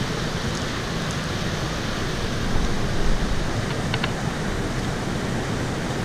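Rushing water of a small mountain stream pouring over boulders in white-water rapids, a steady, even rush. A couple of faint clicks come about four seconds in.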